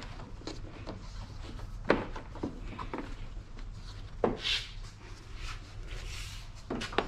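Scattered sharp clicks and knocks of hard plastic trim being slid and pressed back into place on the front of a BMW, the loudest a little past four seconds in and two more near the end, over a low steady hum.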